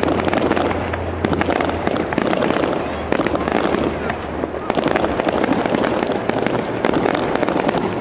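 Fireworks display: a rapid, unbroken run of crackles and bangs from many aerial shells bursting at once.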